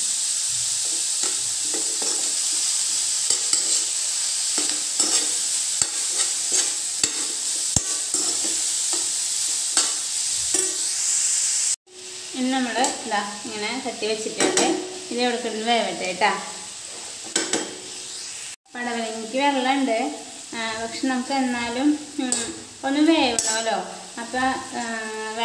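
Food sizzling in hot oil in a pan, a steady hiss with scattered scrapes and clicks of stirring. About twelve seconds in it cuts off abruptly, and a quieter stretch follows in which a voice is heard over the cooking.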